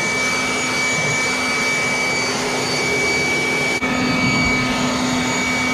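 A handheld air blower runs steadily with a constant whine, blowing air into an engine's valley to clear out dirt. There is a momentary dip about four seconds in.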